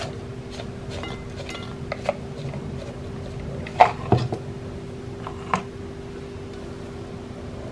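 A measuring spoon clinking lightly against a glass mixing bowl as powdered spices are spooned onto flour: a few sharp clinks, the loudest pair about four seconds in and another a moment later, over a steady low hum.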